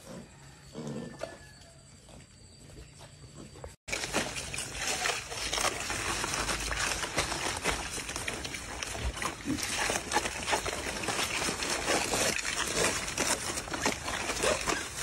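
Low grunts from an adult wild boar sow, then, after a sudden break about four seconds in, a litter of wild boar piglets feeding on a banana stem: a busy, continuous mix of small grunts and squeaks with chewing and rustling.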